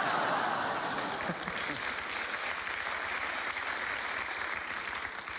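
Studio audience applauding, the applause slowly dying down.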